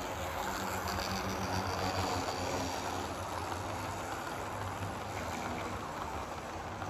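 HO-scale model train's Garib Rath coaches rolling past on the track: a steady rolling rattle of wheels on the rails over a low hum.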